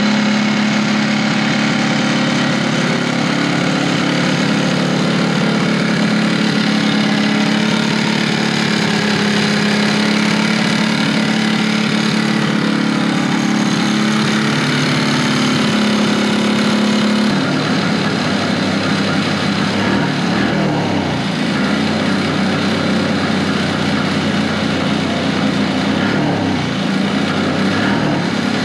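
1970 Evinrude Skeeter snowmobile's two-stroke engine running on a stand while it warms up before a carburettor mixture adjustment. It holds a steady note for most of the time, then about two-thirds of the way in the note turns uneven and wavers.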